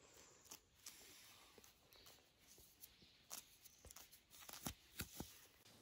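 Feathers being plucked by hand from a small shot bird: faint tearing and rustling with scattered sharp ticks, the loudest ones a little before the end.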